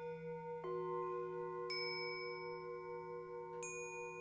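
Crystal singing bowls ringing in steady, overlapping sustained tones, with another bowl struck under a second in and adding a lower tone. About a second later a chime is struck and rings out with bright high overtones.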